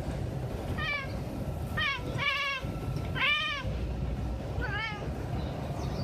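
Domestic cat meowing five times in short calls that rise and fall in pitch, the fourth the loudest, over a steady low background rumble.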